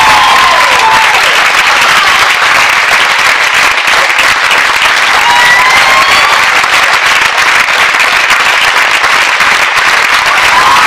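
Audience applauding steadily and densely.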